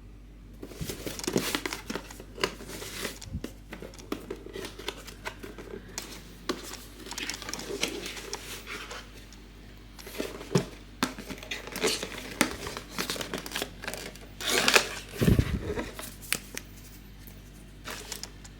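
Packaging crinkling and rustling in irregular bursts as a boxed USB microphone is unpacked by hand.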